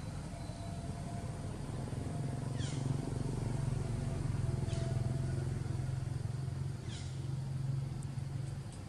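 Steady low engine-like rumble, with a short high call that falls in pitch repeating about every two seconds.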